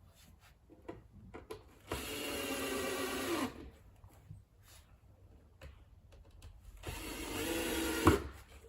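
Power drill-driver driving screws into the wooden furniture panels: two runs of the motor, each about a second or so, the second ending in a sharp crack as the screw seats. Light clicks of handling between them.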